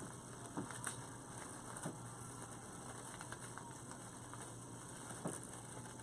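Faint scattered clicks and rustles of artificial flower stems and greenery picks being handled and pushed into a grapevine wreath, over a low steady hum.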